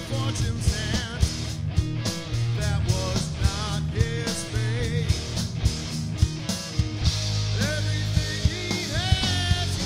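Background music with a steady beat and a wavering melody line over it.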